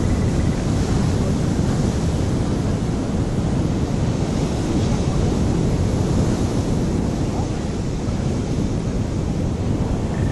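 Wind buffeting the microphone over the steady wash of surf breaking on the rocks.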